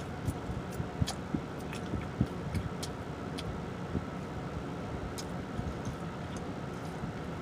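Chewing with scattered wet mouth clicks and smacks, over a steady low hum inside a car.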